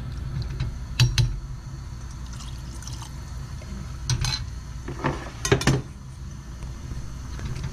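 A metal ladle stirring soft-tofu stew in an earthenware pot: liquid sloshing, with sharp clinks of the ladle against the pot about a second in and several more between about four and six seconds in, over a steady low hum.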